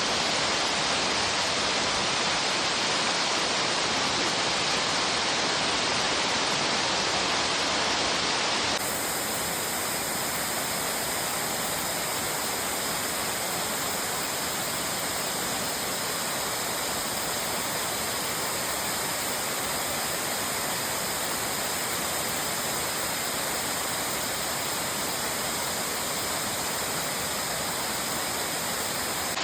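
Waterfall: the steady, dense rush of water plunging over the Odaki fall of Gyōji-ga-taki. The tone of the rush shifts slightly about nine seconds in.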